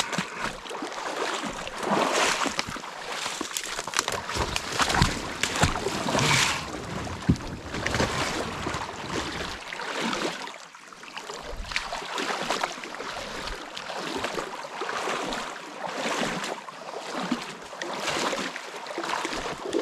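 Kayak being worked through a shallow, overgrown creek: irregular splashing and swishing about every second.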